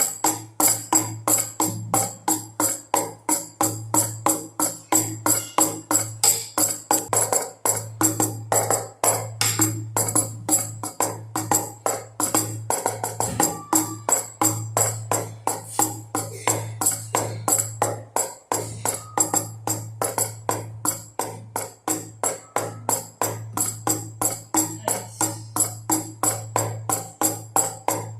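Baby rattle shaken in a steady rhythm together with drum beats, about three strokes a second, over a steady low hum.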